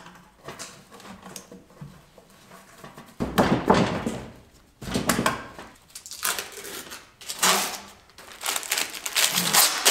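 Workshop handling noises around a large glued-up segmented wooden cylinder. Strap clamps are worked first, then there is a heavy knock and scrape as the cylinder is laid on the bench about three seconds in. Later come repeated rustling, tearing strokes as paper is pulled off the wood.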